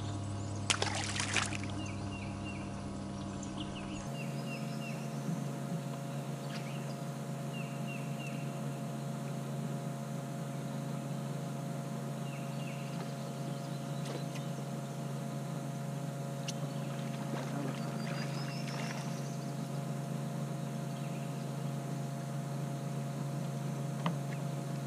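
Steady hum of an electric boat motor running, its tone shifting slightly about four seconds in, with a few sharp clicks and faint short high chirps over it.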